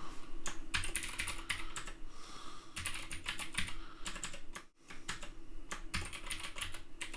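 Typing on a computer keyboard: quick runs of key clicks, with a short pause about two-thirds of the way through.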